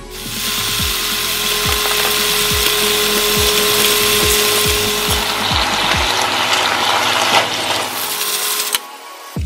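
A small electric motor appliance running loudly and steadily, then cutting off abruptly near the end.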